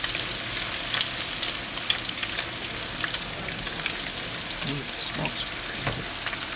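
Breaded catfish nuggets frying in hot peanut oil in a skillet: a steady sizzle with a scatter of small crackles and pops.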